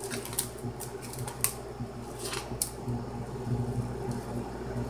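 Plastic sausage packaging crinkling in a few brief crackles as hot Italian sausage is squeezed out of it into a pot, over a steady low hum.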